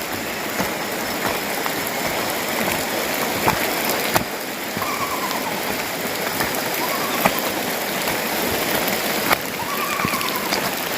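Steady rain falling, with drops ticking sharply now and then and a few faint, short rising-and-falling calls in the second half.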